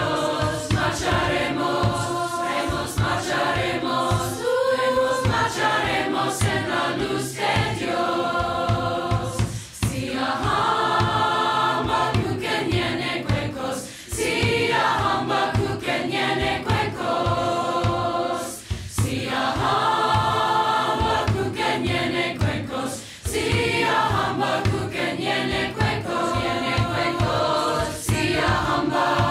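Choir singing with instrumental accompaniment over a steady beat, in phrases a few seconds long with brief pauses between them.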